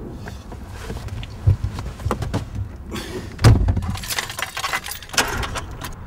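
Handling noises inside a car cabin: a door shutting with heavy thumps, about one and a half seconds in and again near the middle, with clicks and rustling of keys and clothing between.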